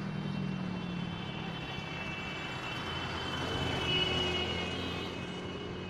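A passing vehicle, its sound swelling to a peak about four seconds in and then fading.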